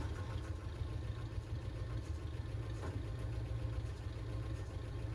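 A 1969 Chevrolet pickup's engine idling steadily with a low, even rumble, moments after being started.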